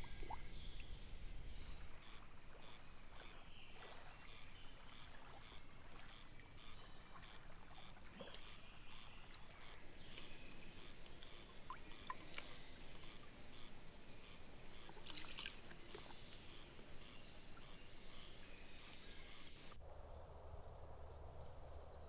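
Summer insects, crickets or grasshoppers, chirping steadily in a high-pitched chorus with a faint regular pulsing, and a few soft clicks and water sounds. Near the end the insect sound cuts off suddenly, leaving a lower, softer background.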